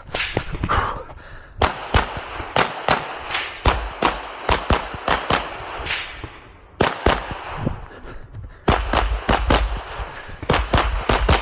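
Rapid gunfire fired by the shooter at close range: quick strings of shots, several a second, broken by short pauses, with a longer gap a little past the middle.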